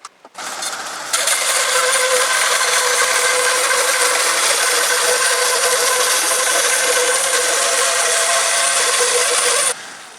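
Homemade electric bandsaw mill sawing a linden log: a steady, loud whine and rasp of the band blade. It steps up sharply about a second in and cuts off suddenly near the end.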